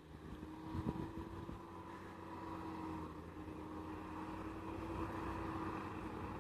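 Deutz-Fahr tractor pulling a McHale round baler through straw, a steady engine-and-machinery drone with a held whining tone, growing slightly louder. A few low thumps come about a second in.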